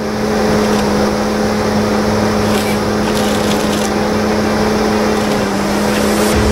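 Heavy forestry machine's diesel engine running steadily with a strong, even drone, with a few short clicks over it in the middle and near the end.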